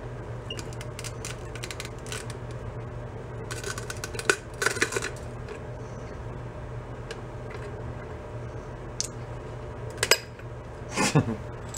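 Small metal clicks and clinks from hands working on a motorcycle headlight assembly while the bulb and its holder are pried out, with louder clusters of clinks about four to five seconds in and again near the end. A steady low hum runs underneath.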